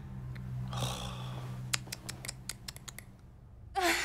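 A quick, irregular run of about ten sharp clicks or snips over a second or so. Near the end a woman's voice comes in, gasping and whimpering in distress.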